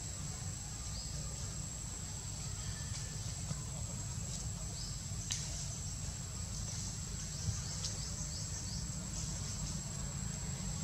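Outdoor forest ambience: a steady high-pitched insect buzz with short, faint rising bird chirps, over a steady low rumble.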